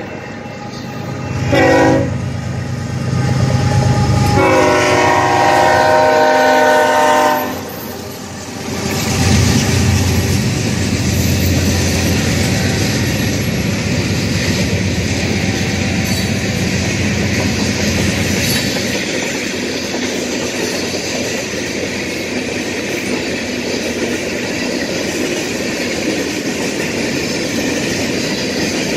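Freight train diesel locomotive's air horn sounds a short blast and then a long one, the end of a long-long-short-long grade-crossing signal. The locomotive then passes with a low engine rumble, followed by the steady rolling clatter of freight cars on the rails.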